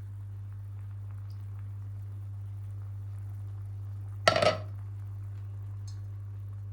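A brief clatter of dishes or cutlery, several quick clinks about four seconds in, over a steady low hum.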